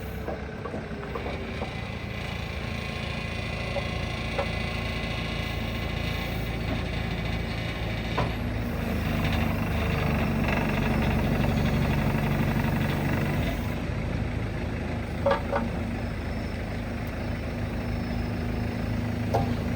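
Komatsu 140 backhoe loader's diesel engine running, rising in level and pitch under load for several seconds midway as the hydraulics are worked to extend the backhoe's dipper, with a few sharp clanks.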